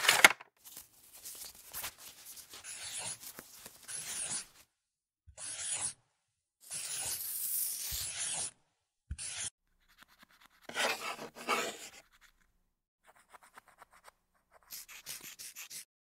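Pen scribbling on paper while colouring in: several bursts of quick scratchy strokes, each a second or two long, with short silences between them. A sharp click comes at the very start.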